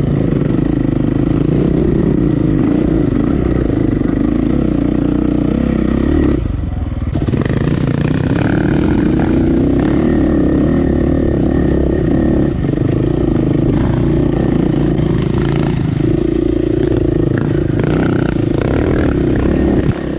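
KTM EXC enduro dirt bike's four-stroke single-cylinder engine running steadily under throttle while riding a trail. The engine note dips briefly about six and a half seconds in.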